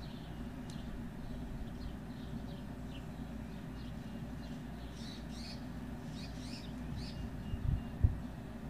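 Small songbirds chirping over a steady low outdoor rumble, with two dull thumps near the end.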